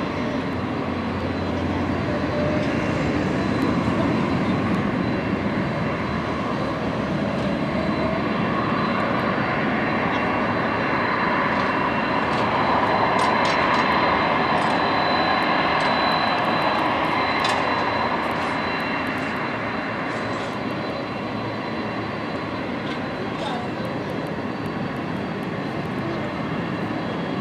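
Airbus A330-300 airliner with Rolls-Royce Trent 700 jet engines climbing away after takeoff: a steady jet rumble and rush that swells a little about halfway through, then slowly fades as the aircraft recedes.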